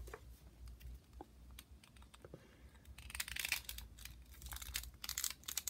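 Light clicks and rustles of hard plastic parts being handled as a plastic action figure's head is pushed onto its neck joint. A louder crinkly rustle comes about three seconds in and again near the end.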